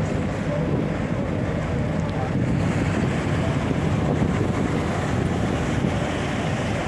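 Heavy diesel construction machinery, a CFA piling rig and an excavator, running steadily, with heavy wind buffeting the microphone.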